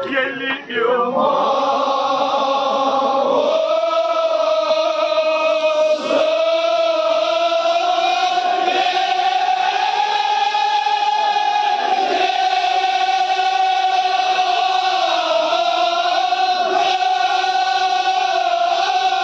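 A crowd of men chanting in unison, starting about a second in: one long drawn-out call held on nearly one pitch that drifts slowly upward with brief dips.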